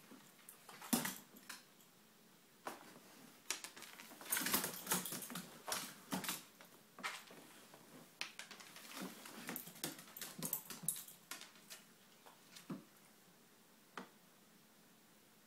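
Italian greyhound's claws clicking and tapping on a hardwood floor as it bows and shifts its feet, in irregular clusters of sharp clicks with a lull near the end.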